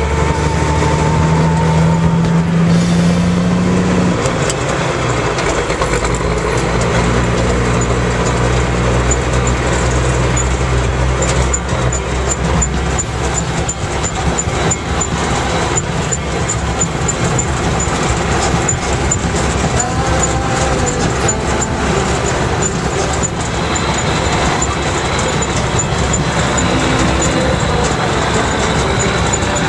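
The multifuel diesel engine of a 1969 M35A2 two-and-a-half-ton army truck running under load as the truck is driven, heard from inside the cab. Its note changes in steps in the first several seconds as the gears are shifted.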